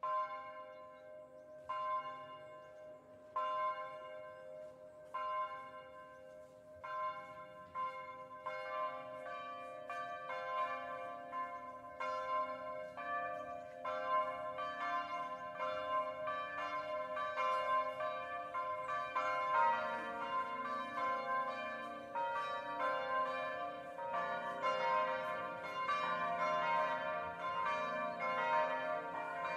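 Church bells ringing: at first a single bell struck about every second and a half to two seconds, then more bells join from about seven seconds in, overlapping into a dense, fuller peal that grows louder.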